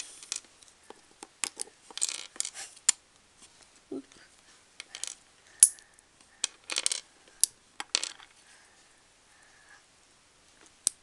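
Plastic Lego bricks being pulled apart and set down on a wooden tabletop: irregular sharp clicks and short clatters.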